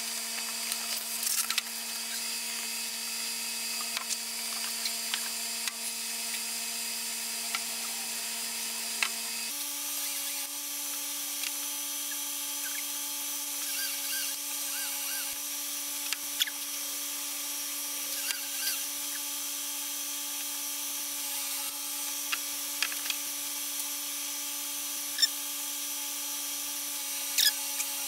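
Sped-up workshop sound: a steady electrical whine with overtones, stepping slightly higher about nine seconds in, over a faint hiss. Short light clicks and taps come from hands handling small wood veneer pieces on foil, more of them near the end.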